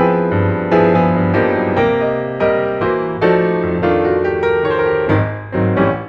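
Background music: a slow piano piece, notes and chords struck every half second or so and left to fade.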